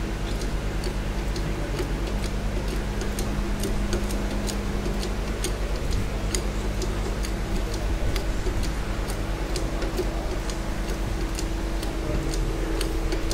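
Hand-operated hydraulic test pump being stroked to build water pressure in a blanked-off cylinder head for a pressure test, giving regular clicks about twice a second. A steady low machinery hum runs under it.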